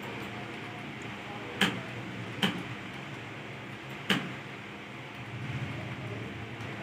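Computer keyboard keys clacking during a typing test, three loud sharp key strikes among faint scattered ticks, over a steady room hum.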